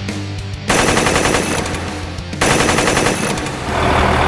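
Machine-gun fire sound effect in two long rattling bursts, over background rock music. About three and a half seconds in it gives way to a steady vehicle rumble.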